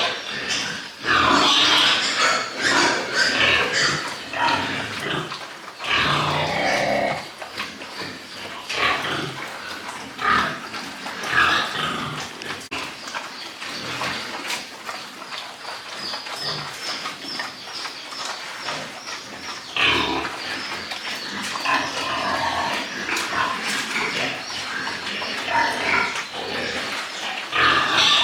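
Pigs squealing and grunting in loud, ragged bursts, heaviest in the first few seconds and again about twenty seconds in, with quieter grunting between. A faint, rapid high chirping runs through the second half.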